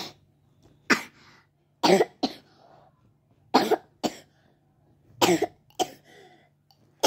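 A child with a cough and cold coughing repeatedly, about eight short coughs that come mostly in pairs.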